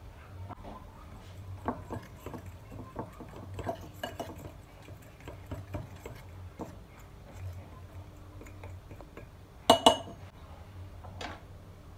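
Metal spoon stirring dry flour and salt in a glass mixing bowl, scraping and lightly clicking against the glass, with two loud sharp clinks close together about ten seconds in.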